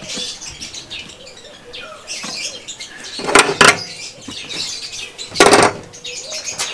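Metal slip-joint pliers clattering and scraping on a car's sheet-metal scuttle panel, two short loud rattles about two seconds apart.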